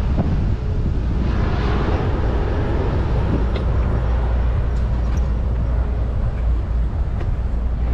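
Steady wind noise on a GoPro action camera's microphone during an electric scooter ride, heavy and low, with street traffic beneath it and a few light ticks.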